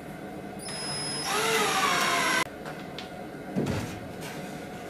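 Cordless drill driving a coarse-thread pocket-hole screw into plywood: the motor whines with its pitch shifting as the screw draws tight, then cuts off abruptly about two and a half seconds in. A single thump follows about a second later.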